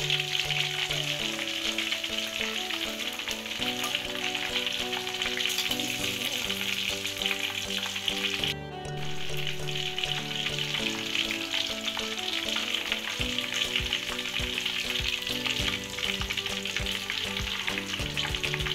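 Chicken pieces deep-frying in hot oil in a wok: a dense, steady crackling sizzle that drops out briefly about halfway through.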